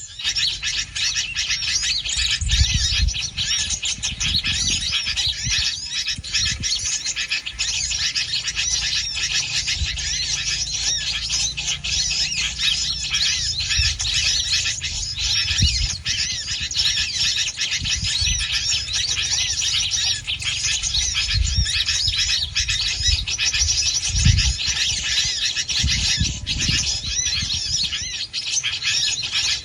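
Small birds chirping densely and without pause, with scattered low thumps underneath.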